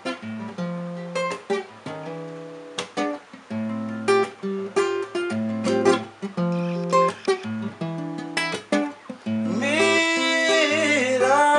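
Instrumental break of a song on acoustic guitar, with plucked notes and strummed chords. Near the end a held, gliding melody line comes in over the guitar.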